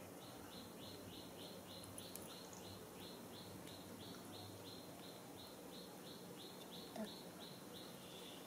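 Faint, evenly spaced high chirps from a small animal, about three a second, going on steadily over a low room hum, with one brief click about seven seconds in.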